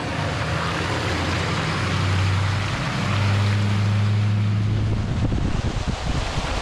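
Pickup truck engines running at low speed on a muddy gravel road, a steady low hum with tyre and road noise. Near the end the hum gives way to a rough rumble of tyre, mud and wind buffeting the microphone close beside a wheel.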